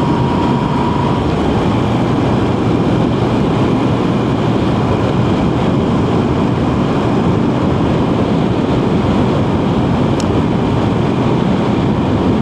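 Motorcycle engine running at a steady cruise, mixed with wind rushing over the microphone while riding.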